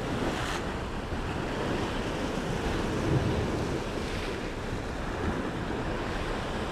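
Sea surf washing against a rocky shore, with steady wind buffeting the microphone.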